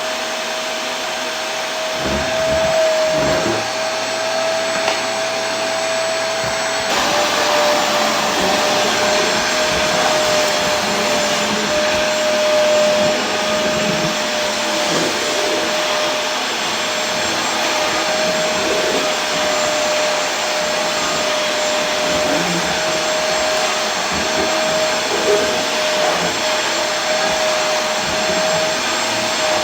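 Vacuum cleaner running continuously: a steady motor whine over a rush of airflow. The tone shifts slightly and suddenly about seven seconds in.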